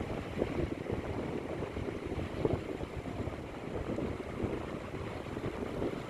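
Small waves breaking and washing onto a sandy beach, with wind buffeting the microphone in an uneven low rumble.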